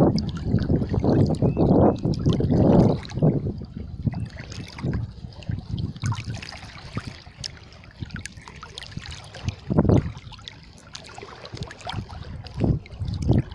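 Floodwater sloshing and swishing around a person's legs as he wades through it, in irregular surges, heaviest at the start.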